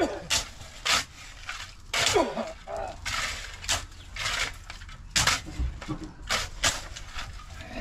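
Steel spades scraping and scooping through a pile of gravel and cement, hand-mixing concrete on the ground: rough, gritty scrapes, one every second or so.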